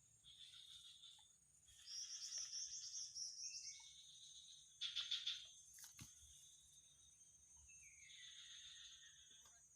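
Riverside forest wildlife: birds calling in several short bursts of chirps and rapid trills, one of them falling in pitch near the end, over a steady high-pitched insect drone.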